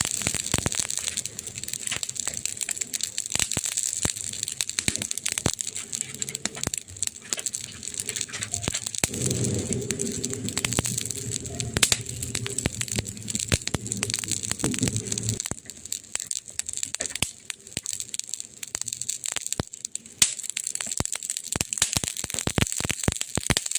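Burning wood crackling, with dense sharp snaps and pops over a soft hiss. A low hum joins for about six seconds in the middle.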